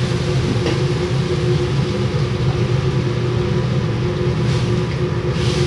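Kitchen extractor hood fan running with a steady hum and rumble. Now and then there are faint scrapes from a spoon stirring in a large steel pot.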